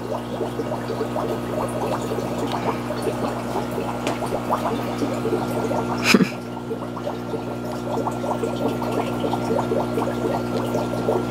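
Aquarium water running and bubbling over a steady pump hum, with a constant fine crackle of small bubbles. There is one brief sharp click about six seconds in.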